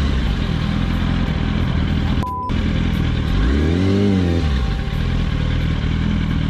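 Sport motorcycle engine running while filtering through traffic, with the revs briefly rising and falling about three and a half seconds in. A short censor bleep cuts in about two seconds in.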